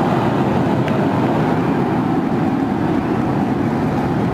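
Super Heavy booster's 33 Raptor engines firing at liftoff: a steady, dense low rumble.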